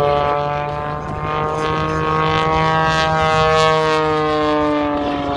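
Propeller engine of an aerobatic plane droning overhead as it loops. Its pitch rises slightly and then falls over the last couple of seconds.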